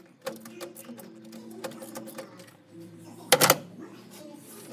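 Hand tool clicking and scraping against old wiring and metal brackets behind a truck dashboard, a few sharp clicks a second over a faint steady hum, with a short loud rattling clatter about three and a half seconds in.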